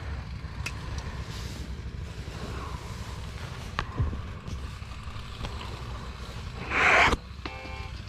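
Wind buffeting the microphone, a steady low rumble with a few light knocks, and a short loud rushing noise about seven seconds in. Music starts just before the end.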